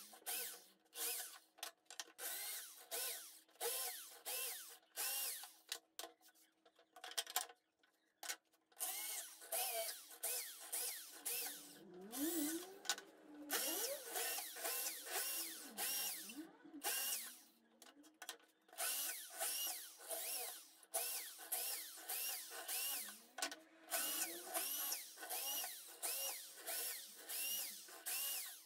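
Corded electric drill run in short bursts, two or three a second, each rising in pitch as the motor spins up and falling as it coasts down, as a small bit bores a row of holes into wooden boards. There is a brief lull about eight seconds in.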